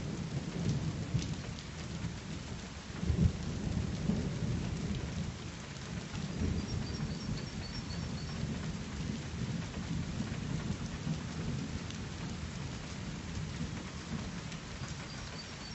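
Thunder rolling and rumbling, with a louder peak about three seconds in, then slowly dying away, over a steady hiss of rain.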